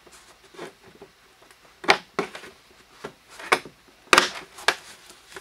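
Hard plastic knocking and clicking as a PVC 90-degree elbow is worked into a hole-sawed opening in a plastic 5-gallon bucket: several separate sharp knocks, the loudest about four seconds in.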